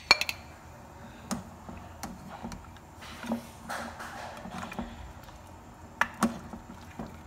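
A metal ladle clinking against a steel pot and a ceramic plate while boiled pork pieces are moved onto the plate: a few sharp knocks, the loudest at the very start and a pair close together near the end.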